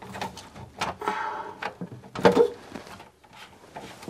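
Plastic basin trap and waste pipe fittings being handled and pushed together by hand: a run of knocks and clicks, with a short scraping sound a little after a second in and the loudest knock just after two seconds in.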